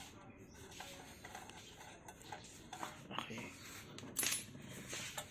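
Small metal clicks and clinks as screws are undone with a 5 mm Allen key to take off a motorcycle's chrome exhaust muffler end cap, with one sharper clink about four seconds in.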